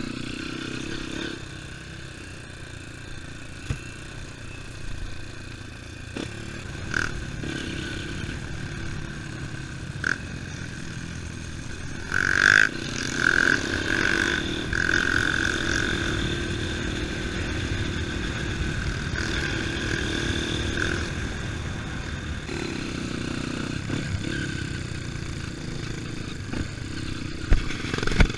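Off-road trail motorcycle engine running while riding, the engine getting louder for a few seconds about halfway through, with occasional knocks and clatter.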